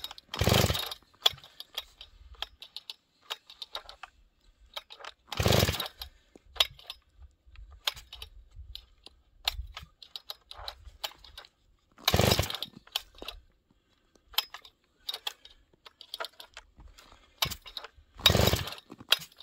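Four hard recoil-starter pulls on a cold Husqvarna 394 XP chainsaw, each a short rasping crank of the engine about six seconds apart, with small handling clicks between. The engine never fires: the big saw is hard to pull over in the deep cold even with the decompression valve open.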